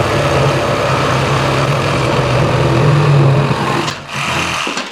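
Makita JR105DZ cordless reciprocating saw running and sawing. It stops about three and a half seconds in, runs again briefly, and stops just before the end.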